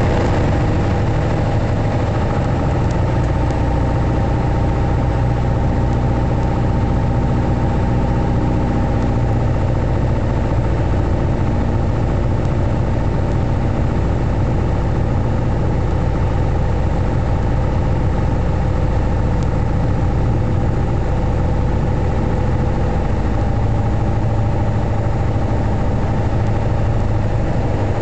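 Piper PA-28's single piston engine and propeller running steadily on final approach, heard from inside the cockpit as an even drone.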